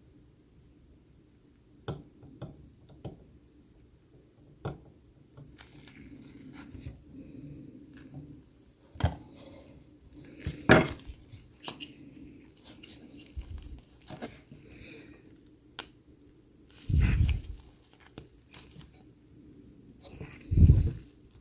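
Intermittent handling noises of small parts and tools: scattered light clicks, short rustling and scraping, and a few louder knocks and thuds, the loudest one near the end.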